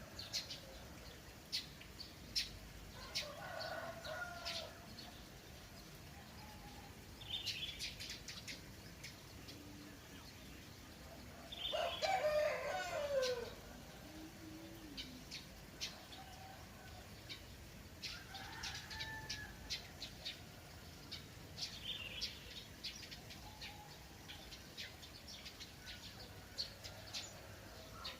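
A rooster crowing, one loud drawn-out crow about twelve seconds in, with fainter crows a few seconds in and later on, over small birds chirping throughout.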